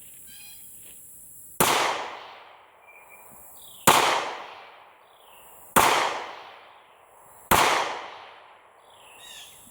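Four gunshots fired one at a time, about two seconds apart. Each shot echoes and dies away over about a second.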